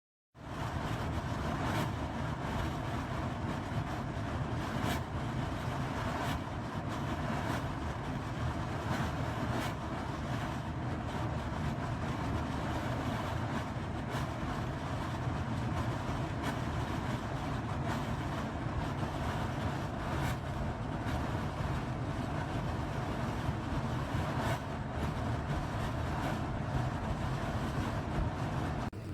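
A steady, low mechanical rumble with frequent light clicks, starting and stopping abruptly.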